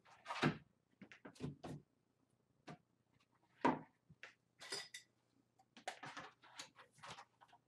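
Irregular rustles, scrapes and light knocks as a stiff molded Worbla thermoplastic mask piece and a marker are handled and marked on a craft table, the loudest about half a second in and near four seconds.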